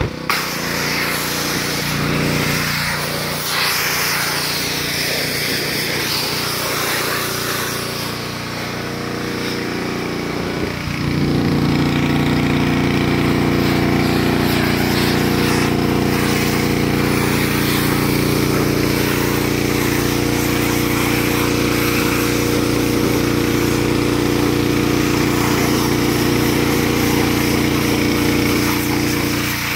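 Gas-engine pressure washer running steadily, its small engine heard under the hiss of the spray wand. About eleven seconds in it grows louder and its pitch shifts.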